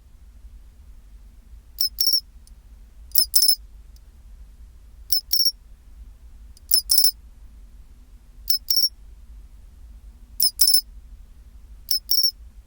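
Pine cricket (matsumushi, Xenogryllus marmoratus) singing its 'chin-chirorin' call: short, high, two-part chirps repeating about every one and a half to two seconds, seven times, over a faint low hum.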